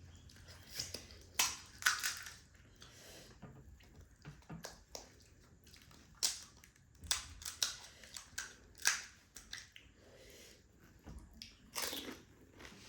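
Pani puri being eaten close to the microphone: the crisp fried puri shells crack and crunch between the teeth in irregular sharp bursts, with wet chewing in between.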